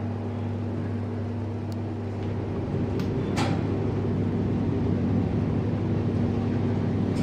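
Lift in operation: a steady low drive hum that grows louder about three seconds in, with two short clicks.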